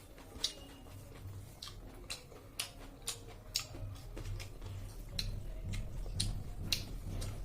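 Close-up eating sounds: irregular sharp clicks and smacks from chewing food, joined about halfway through by a low, pulsing thud of chewing.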